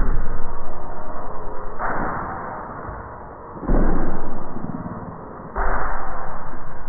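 Soundtrack of sudden hits, about one every two seconds, each fading out over a second or so, with faint steady tones underneath.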